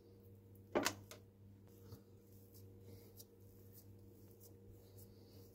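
A lump of shortcrust pie dough dropped into a metal springform pan, landing with one sharp knock about a second in. It is followed by faint handling and pressing sounds over a low steady hum.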